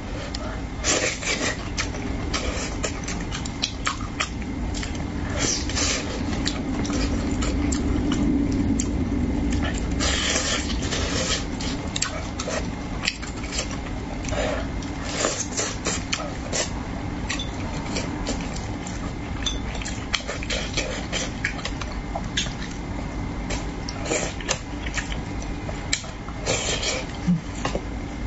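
Close-up eating sounds: wet chewing and lip-smacking on mouthfuls of spicy braised carp, with many short clicks of chopsticks against the dish and bowl.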